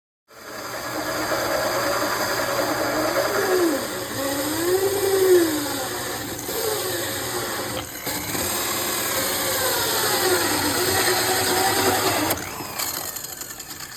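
A power tool's electric motor running steadily, its pitch repeatedly dipping and rising again, then dying down near the end.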